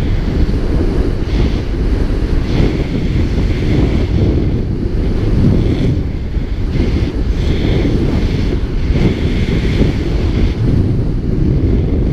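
Wind buffeting an action camera's microphone as a paraglider flies: a loud, steady rumble that swells and dips with the airflow, with a fainter rushing hiss above it.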